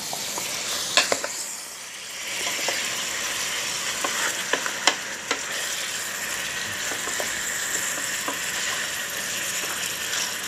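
Chicken pieces sizzling as they sauté in an aluminium pot, stirred with a wooden spatula. A steady hiss, with sharp knocks now and then as the spatula hits the pot.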